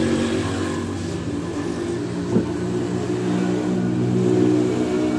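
Steady hum of an engine running, with a single sharp tap about two and a half seconds in.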